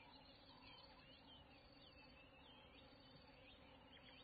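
Faint natural bush ambience: many small birds chirping in quick rising and falling notes, over a steady faint hum.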